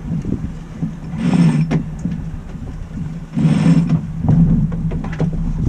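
Wind and sea noise aboard a sailing yacht under way: a steady low rumble with the rush of water swelling up twice, plus scattered light clicks from the cockpit gear.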